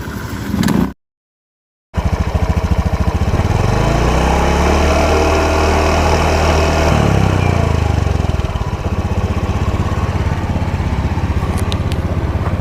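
Honda Beat Street scooter's engine and freshly rebuilt final drive running on the stand: idling, revved up once for a few seconds and then dropping back to idle. It runs smoothly, with no whine or rough grinding now that the worn reduction gears and bearings have been replaced.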